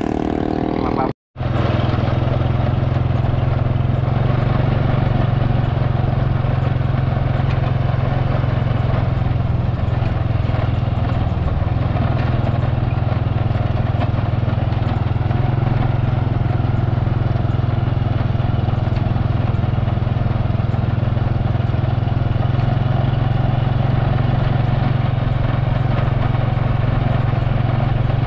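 Motorcycle engine running steadily at an even cruising speed, heard from on board the moving bike. The sound drops out completely for an instant about a second in.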